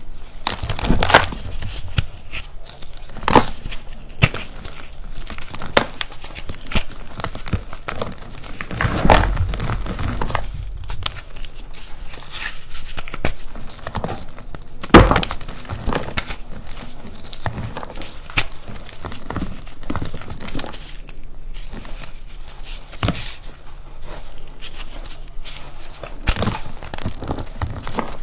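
Purple reformed gym chalk crushed and crumbled by hand: dry, irregular crunching as chunks break apart and crumbs patter into a pile of chalk, with several sharp snaps, the loudest about halfway through.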